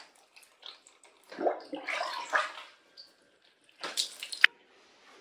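Wet splashing and rubbing noises of a freshly bathed cat being handled and towelled, in a noisy burst through the middle, then a quick run of sharp clicks near the end.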